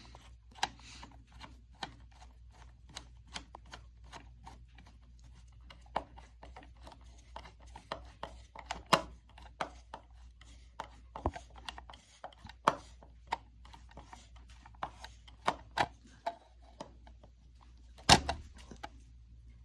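Irregular clicks and taps of a hand tool and small hardware as a loose fitting on newly installed shed wiring is tightened, with one louder knock near the end, over a faint steady low hum.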